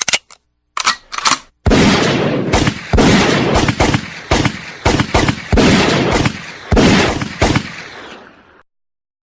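Gunfire sound effect: a few sharp clicks, then a volley of about a dozen loud, irregularly spaced shots with echoing tails that stops abruptly near the end.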